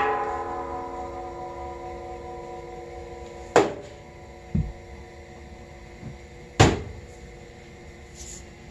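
Sharp metal knocks, three of them a few seconds apart, with a duller low thump between the second and third; the first leaves a ringing tone that dies away slowly. The source is the steel starter box and steel tank of the air compressor being bumped by hands and a heavy power cord during wiring.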